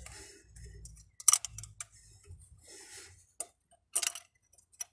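Glow plug being unscrewed from a diesel engine with a wrench: dry threads grating, with a few sharp metallic clicks of the tool. The grating comes from the plug having been fitted without copper grease.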